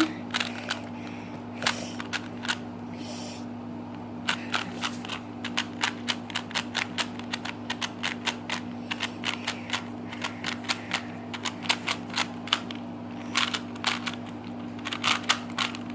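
Rubik's Cube being scrambled by hand: its plastic layers twisting in a fast, uneven run of clicks and clacks. The clicks are sparse for the first few seconds, then come several a second.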